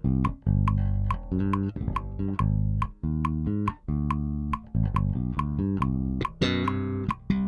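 Mike Lull M5V five-string electric bass played, a run of separate plucked notes, with a steady click keeping time about twice a second.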